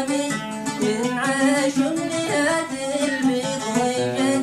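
Yemeni song: a singer's voice carrying a melody over a plucked string instrument.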